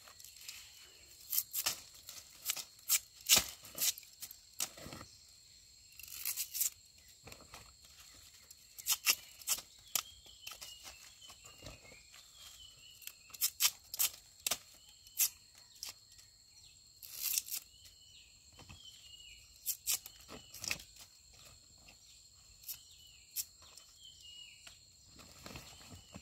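Bitter bamboo shoots being worked by hand and knife: their sheaths are torn and snapped, making an irregular string of sharp tearing and snapping sounds, mixed with rustling in dry leaves.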